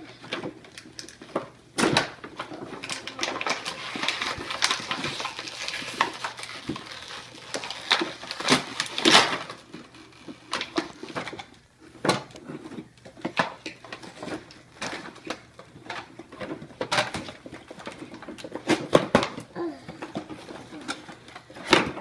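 Toy packaging being handled and pulled open: clear plastic packaging crackling and a cardboard box being worked, with irregular knocks and clatter on the tabletop.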